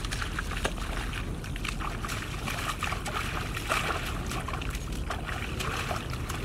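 Shallow water splashing and trickling in quick irregular sloshes and drips, over a steady low rumble.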